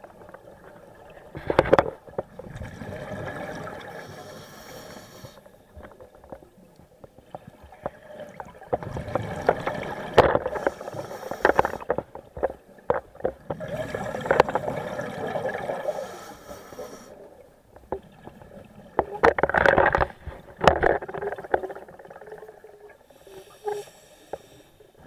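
A scuba diver breathing through a regulator underwater: a hiss on each inhale followed by loud, gurgling bursts of exhaled bubbles, a breath every five seconds or so.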